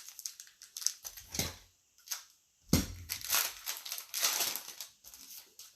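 Crinkling and crackling of a trading-card pack wrapper being handled and opened, with two dull bumps, about a second in and near the three-second mark.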